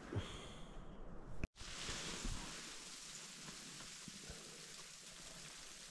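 Frozen rain pattering on a backpacking tent, heard from inside: a faint, even hiss with scattered small ticks that starts about a second and a half in.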